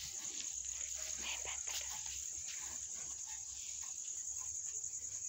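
Coconut coir fibre being drawn by hand through a steel-pin comb: irregular scratchy, rustling strokes as the pins tear through the fibre bundle. A steady high-pitched drone runs underneath.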